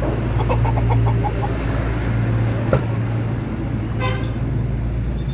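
A motor hums steadily and low, with a few short faint clucks from chickens in the first second or so.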